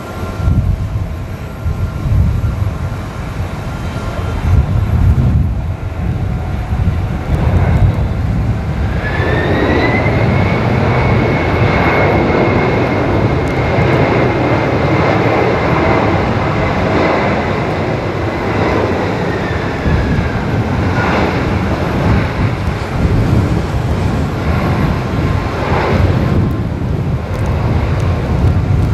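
Boeing 767-300 airliner on its landing roll on a flooded runway, its jet engines rumbling. About nine seconds in, the engines spool up into a loud roar with a rising whine that holds for about ten seconds and then slides back down, as reverse thrust is applied to slow the aircraft.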